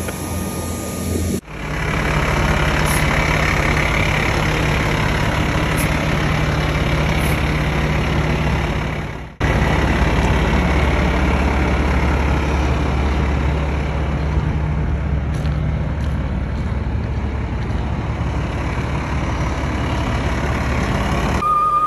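Fire truck engine running steadily on a tower ladder apparatus, a low even hum under a loud rushing noise. The sound breaks off sharply twice, about one and a half seconds in and again about nine and a half seconds in.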